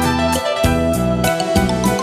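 Instrumental music from a pop song: a steady drum beat several strokes a second under held keyboard chords and a moving bass line, with no singing.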